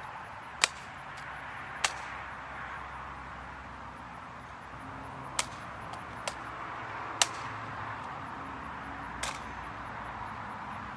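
Hands slapping and catching a drill rifle during spins: about six sharp cracks at uneven intervals, over a steady outdoor hiss.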